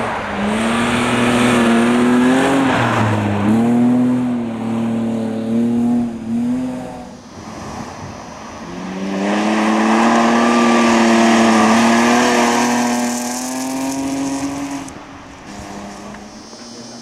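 Rally car engine held at high revs as the car drives flat out past on a snowy stage, in two long runs. The pitch drops briefly about two and a half seconds in. The second run, starting about nine seconds in, climbs slowly before the sound dies away near the end.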